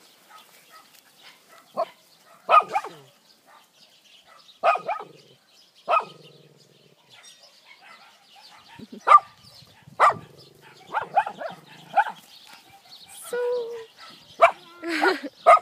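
Several dogs barking in short, separate barks every second or two, coming more often in a quicker run near the end.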